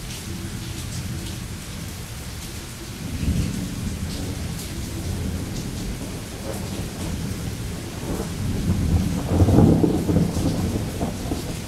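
Heavy rain falling steadily through a thunderstorm. A low rumble of thunder comes about three seconds in, and a louder, longer roll of thunder builds and peaks a little past the two-thirds mark.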